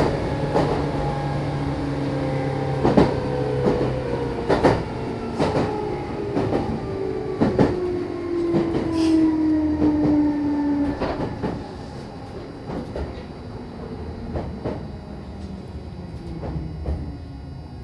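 Interior running sound of a Meitetsu electric train braking: the traction motor whine falls steadily in pitch while the wheels click over rail joints at a slowing rhythm. The train comes to a stop about eleven seconds in, leaving a quieter steady hum from the standing car's equipment.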